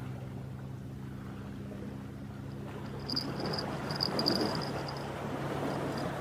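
Steady drone of a boat engine running offshore. From about halfway through, an insect chirps on and off in a high pitch.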